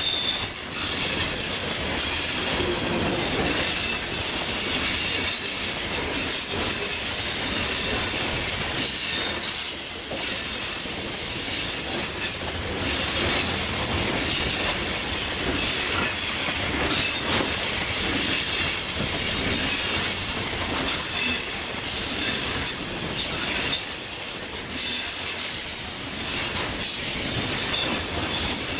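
Loaded coal train's hopper cars rolling past: steel wheels clacking over the rail joints, with high, thin wheel squeals that come and go.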